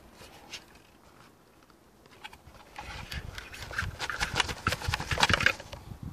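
Handling noise: a quick run of clicks, knocks and scraping as a plastic airsoft helmet and mannequin head are handled, starting about halfway through and busiest near the end.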